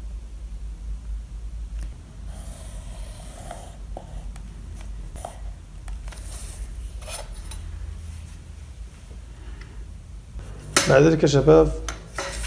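Graphite pencil drawing lines along a clear plastic ruler on paper: soft scratching strokes, one lasting about a second and a half, with light clicks and taps of pencil and ruler, over a low steady hum. A man's voice comes in near the end.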